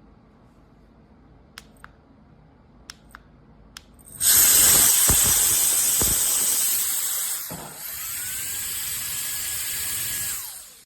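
A cordless electric air duster (a high-speed turbo fan blower) blowing: after a few small clicks it starts abruptly about four seconds in with a loud rushing hiss. A little past halfway it drops in level, and a thin whine can be heard that falls away as the fan winds down and stops near the end.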